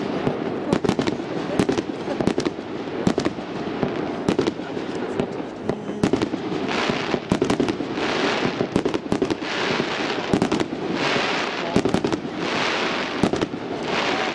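Fireworks display: a rapid run of sharp shell bursts and bangs, joined from about halfway by a series of roughly second-long hissing bursts coming about every second and a half.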